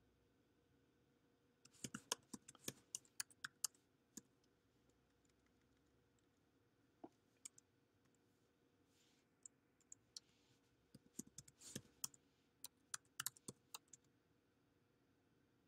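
Faint typing on a computer keyboard: a quick run of key clicks about two seconds in, a few scattered keystrokes, then another run from about eleven to thirteen seconds in.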